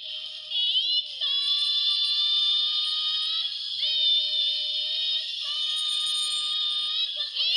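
Bandai Proplica Spiral Heart Moon Rod toy wand playing its built-in electronic sound effect through its small speaker. The sound is a run of held synthetic tones that glide into new pitches every second or two, thin and tinny with almost no bass.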